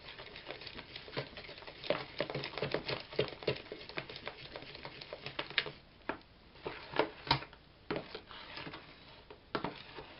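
A spoon stirring a runny milk, egg and sugar mixture in a plastic bowl, clicking and scraping irregularly against the bowl's sides and bottom to dissolve the sugar. A few louder clicks come a little past the middle.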